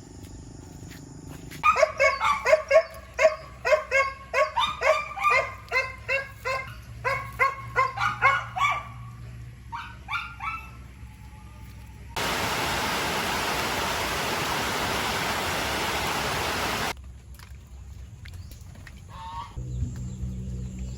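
An animal calling over and over in short, loud, pitched calls, about three or four a second, trailing off after several seconds. This is followed by a steady hiss of about five seconds that starts and stops abruptly.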